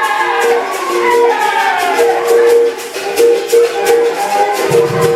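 Capoeira berimbau playing a repeating rhythm of struck notes, with the rattle of the caxixi shaker. A voice sings over it for about the first two seconds.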